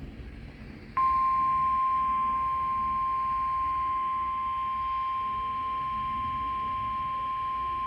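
NOAA Weather Radio warning alarm tone: a single steady 1050 Hz beep played over a weather radio. It starts about a second in and is held unbroken. The tone signals that a new warning message is about to be read.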